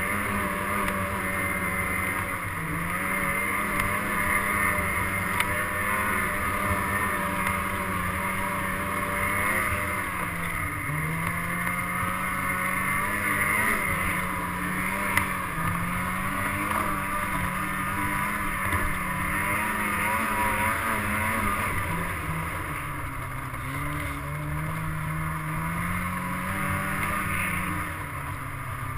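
Engine of a small motor vehicle running on a snowy trail, its pitch rising and falling again and again with the throttle.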